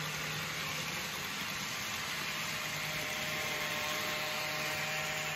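N gauge model train running along the layout's track: a steady whirring noise with a low, even hum under it.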